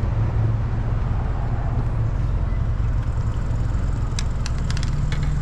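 Boat motor running steadily at low trolling speed, a low rumble and hum, with a few short sharp clicks about four to five seconds in.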